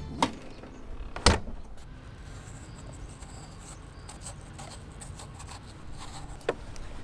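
Three sharp knocks or clicks, the loudest about a second in, over a low steady rumble.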